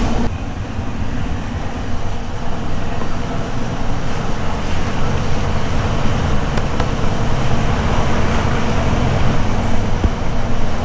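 Steady, loud motor-vehicle rumble with no distinct rhythm.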